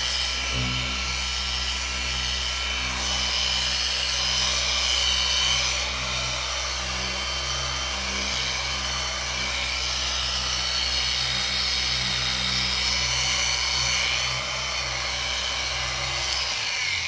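Small electric polisher running steadily with a 3-inch microfiber pad pressed on a plastic headlight lens, a low hum under a high whine that shifts a little in pitch as the pad loads and unloads. The machine shuts off shortly before the end.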